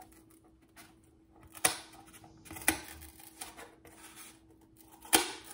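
Scissors snipping through cardboard: a few separate sharp snips, the loudest near the end, over a faint steady hum.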